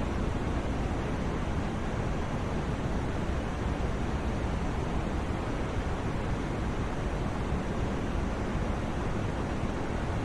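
Steady, unchanging white noise for sleep: an even rush with no swells or breaks, heavier in the low end and fading toward the top.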